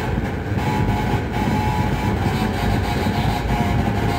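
Loud electronic noise from a home-built light-responsive synthesizer (the OSC^n) driven by Morse-code light flashes: a dense, rumbling low drone under a cluster of high steady tones that cut in and out every half second or so.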